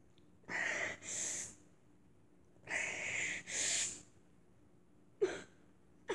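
A boy crying into his hand: two pairs of heavy, breathy sobbing breaths, then two short sharp sobs about a second apart near the end.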